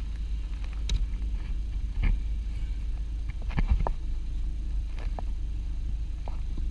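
Scattered clicks and light knocks, about six in all, from hands working on a car's cabin air filter and its housing, over a steady low rumble.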